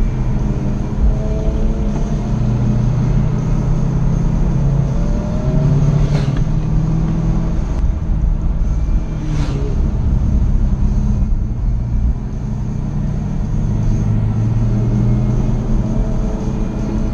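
Jaguar F-Type SVR's supercharged V8 running hard on a winding road, its note rising and falling with throttle and gear changes. Two sharp cracks come about six and nine seconds in.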